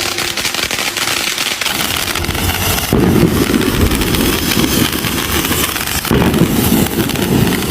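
Fireworks crackling and popping continuously, a dense rapid crackle, changing abruptly about three seconds in and again about six seconds in.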